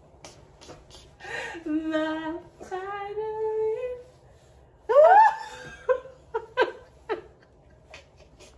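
A woman singing two held notes that climb slowly, then her voice straining up in a sharp rising squeak that breaks off as her voice gives out, followed by short bursts of laughter.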